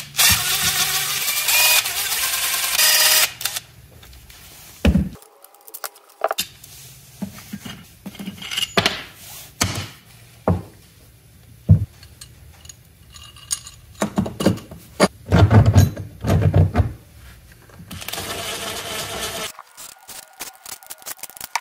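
Cordless impact driver running for about three seconds as it backs the screws out of a motorcycle stator. Then a string of clicks and clinks as loose screws and metal parts are handled, and near the end a second burst from the driver as the screws are run back in.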